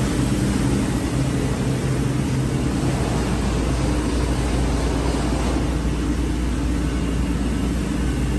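Automatic bedsheet hemming sewing machine running: a steady mechanical drone, a low hum under an even hiss, unchanging throughout.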